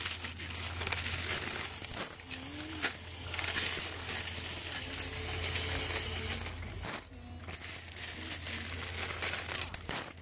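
Loose coins rattling and clinking as they are pushed by hand from the hopper into a coin-counting machine, over a steady low hum; the clatter drops out briefly about seven seconds in.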